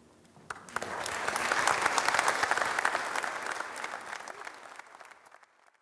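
Audience applauding: the clapping starts about half a second in, builds to its fullest around two seconds, then thins and fades away near the end.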